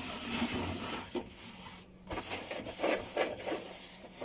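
Cloth or tissue rubbing over the inside top of a microwave oven cavity, spreading a baking soda and vinegar cleaner, in uneven scrubbing strokes with short breaks.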